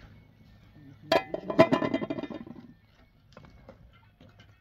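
Metal cookware clanking: a sharp strike about a second in that rings, then a second strike and a rattle of clinks that dies away after about a second and a half, with a few faint clicks near the end.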